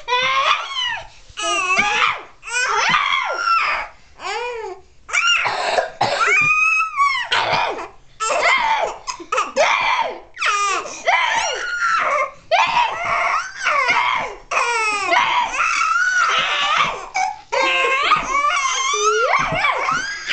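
A baby laughing and squealing in short high-pitched bursts, one after another, the pitch sliding up and down.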